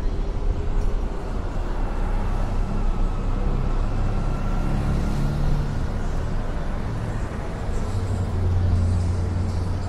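Car driving on a town street: a steady low rumble of engine and road noise that grows a little stronger near the end.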